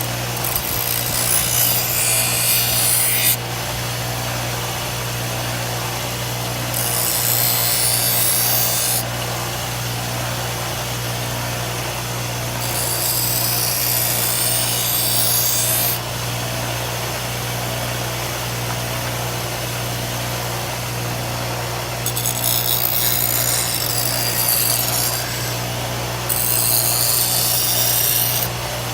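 An electric grinder runs steadily while its disc is pressed against the steel of an old sickle in five passes of two to three seconds each. Each pass adds a harsh, high grinding hiss over the motor's hum as the rust is ground off.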